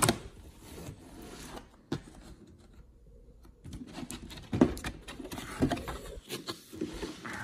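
Cardboard box being handled while its packing tape is slit with a box cutter: scraping and rustling of blade, tape and cardboard. There is a sharp knock at the very start, another about two seconds in, and several more knocks and taps in the second half as the box is shifted.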